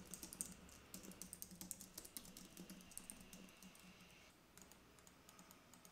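Typing on a computer keyboard: a quick, faint run of key clicks that thins out to a few scattered taps after about four seconds.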